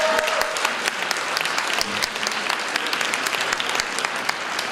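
Audience applauding, a dense steady patter of clapping; the last sung note of the song dies away in the first half second.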